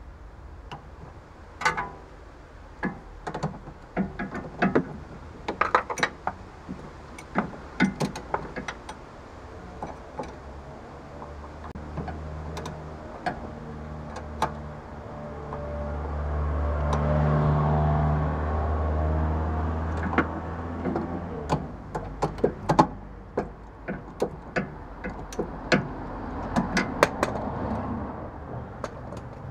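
Irregular metallic clicks and clinks of a spanner working the nut on a BMW E46's front sway bar end link. Midway a vehicle engine's hum swells and fades.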